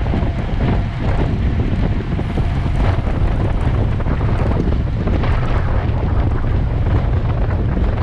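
Heavy wind buffeting on the microphone: a steady low rumble with hiss over it.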